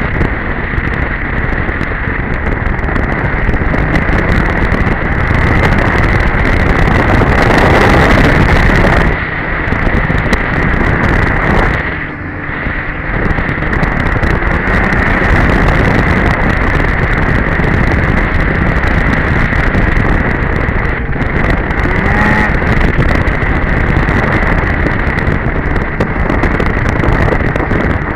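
Polaris Edge two-stroke snowmobile engine running at speed under way, with wind buffeting the microphone. The engine eases off briefly about twelve seconds in, then picks back up.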